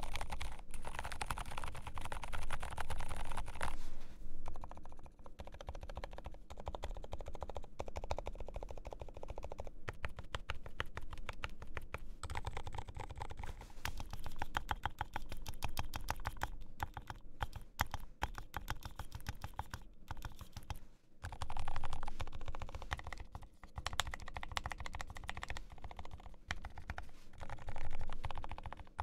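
GMMK Pro mechanical keyboard with lubed Healios linear switches and PBT keycaps being typed on steadily, a rapid run of keystroke clacks, with a few louder flurries near the start and twice near the end.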